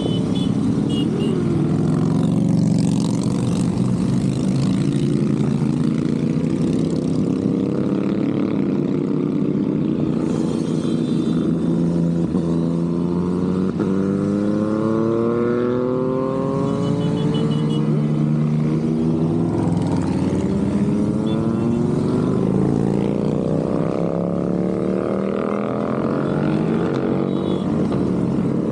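A continuous stream of motorcycles riding past, many engines overlapping. Several rise in pitch one after another as the bikes accelerate by.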